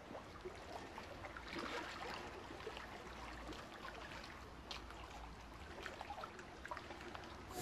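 Water trickling and splashing inside a hydroponic system as it circulates, faint and steady, over a low hum.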